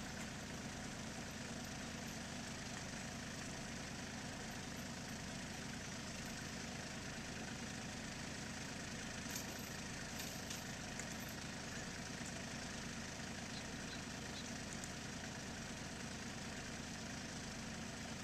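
Small farm tractor engine idling steadily, with an even low pulsing and no change in speed.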